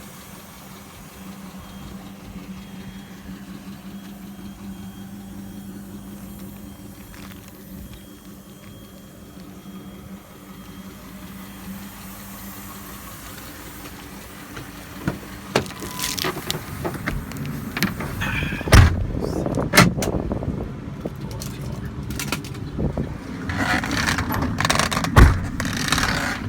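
Ford F-550's V10 gas engine idling steadily. About halfway through, a series of clicks, knocks and several loud thumps sound over the idle.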